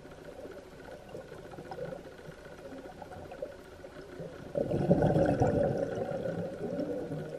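Scuba diver's breathing through a regulator underwater: a quieter stretch, then about four and a half seconds in a loud spell of exhaled bubbles gurgling past the microphone for about two seconds before fading.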